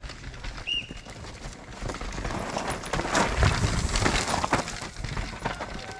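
Downhill mountain bike clattering over the rough dirt course as a rider passes, a dense run of irregular knocks and tyre noise that swells to its loudest about three to four seconds in and then fades.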